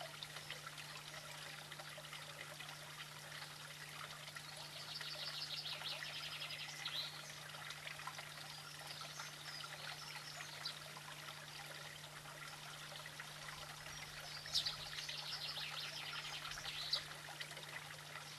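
Outdoor bird ambience over a steady hiss and a steady low hum: two spells of fast, high trilling birdsong, the first about four seconds in and the second about fourteen seconds in.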